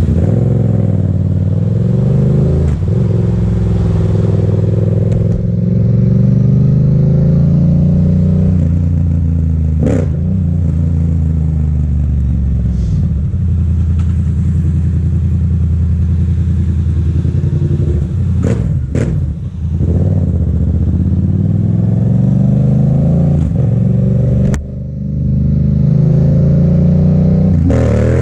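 Motorcycle engine under way, pulling up through the gears and easing off again, its pitch rising and falling several times, with a few brief clicks.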